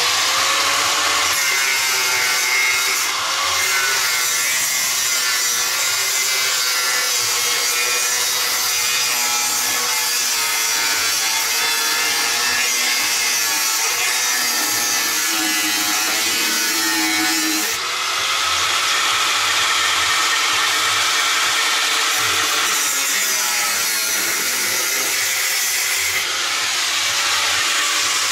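Angle grinder cutting into rusted car-body sheet metal at the sill and wheel arch. Its motor whine wavers as the disc bites, sagging and picking back up about two-thirds of the way through and again near the end.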